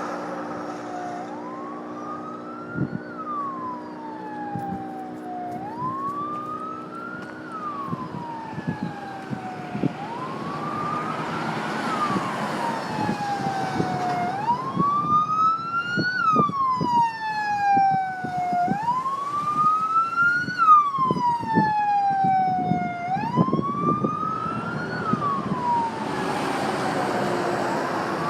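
Emergency-vehicle siren in a slow wail, rising and falling about every four and a half seconds, growing louder past the middle and then fading. Under it is a steady low vehicle engine hum with scattered short knocks.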